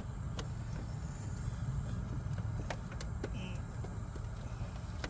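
A few faint clicks and taps of hands working a small rubber hose onto its fitting behind the engine, over a steady low hum.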